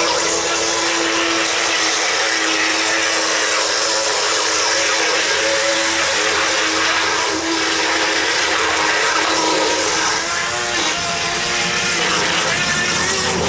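Small battery-powered motor of a radio-controlled toy boat whining steadily as it runs across the pool, its pitch shifting with the throttle about ten seconds in. The battery is running low.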